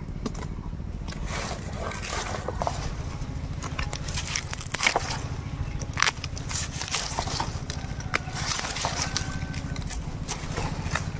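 Dried palm-leaf strips being pulled apart and handled, giving irregular dry crackles and scrapes, the sharpest about five and six seconds in, over a steady low hum.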